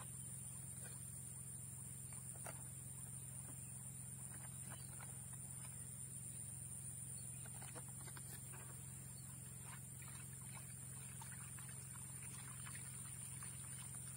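Steady high-pitched insect chorus over a constant low hum, with faint rustles and small knocks from a powder packet and a plastic bucket being handled.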